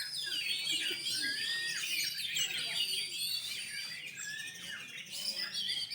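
Several oriental magpie-robins singing at once: a dense, overlapping tangle of whistles, chirps and rapid warbles.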